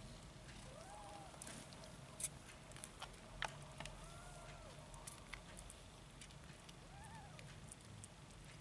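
Young nursing kittens giving three faint, short mews spaced a few seconds apart, each rising and falling in pitch. Scattered soft clicks come between them over a low steady hum.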